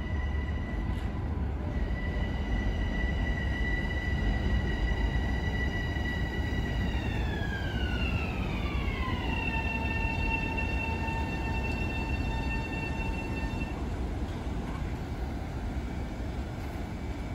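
Long Island Rail Road electric train's motor whine over a steady low rumble. The whine holds one pitch, slides down in pitch over a couple of seconds about seven seconds in, holds at the lower pitch, then fades out well before the end.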